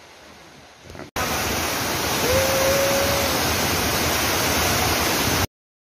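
Waterfall rushing loudly as it pours over rock, with people standing in the falling water. The rush starts suddenly about a second in and cuts off abruptly near the end. A single short held tone sounds over it a little after it starts.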